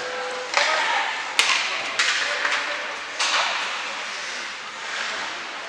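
Ice hockey play: several sharp cracks of stick and puck against the ice and boards, each echoing away in the arena, over a steady hiss.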